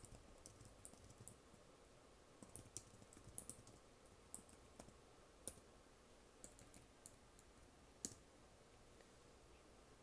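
Computer keyboard being typed on in short, irregular bursts of key clicks with pauses between them; the sharpest click comes about eight seconds in.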